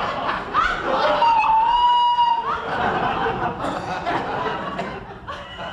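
Audience laughing and chuckling, with a high note held for about a second, about a second in, over the laughter.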